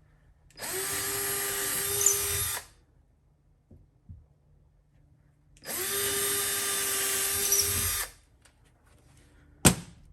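Power drill with a 3/16-inch bit drilling holes into a wall for anchors, in two runs of about two seconds each with a steady whine, the pitch rising briefly as each run starts. A single sharp click near the end.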